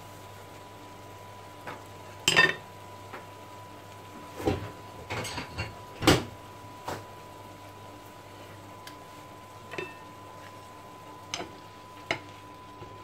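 Scattered clinks and knocks of kitchen utensils and pans, about ten in all, the loudest about two and a half and six seconds in, over a faint steady tone. Near the end a wooden spatula knocks in the frying pan as the seafood is stirred.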